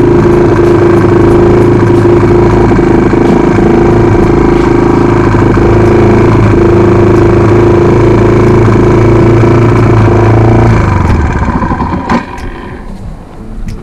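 Motorcycle engine idling steadily, then shut off near the end, with a single click as it dies away.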